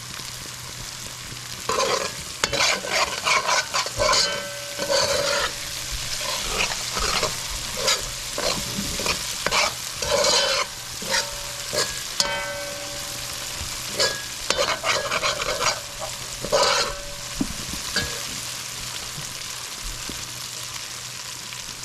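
Pumpkin pieces sizzling in hot oil and burnt curry masala as a spoon stirs them, scraping and clanking against the pot in repeated runs of strokes; the stirring dies down over the last few seconds and the sizzling goes on.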